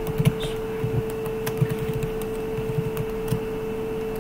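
Computer keyboard keys clicking in short, irregular runs as a command is typed, over a steady hum.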